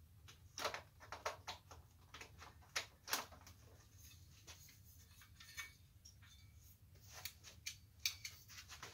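Scattered light clicks and knocks of a nickel-plated swing-arm desk lamp being handled and set down on a workbench mat, its metal arm and base tapping against the bench, over a faint low hum.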